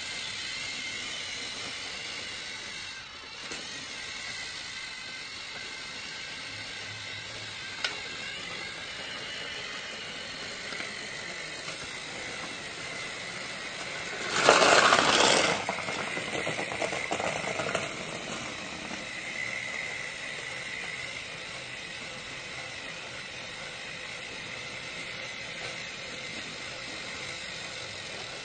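A small motor running steadily with a faint whine, then a loud clatter lasting about a second midway, followed by a few seconds of lighter rattling.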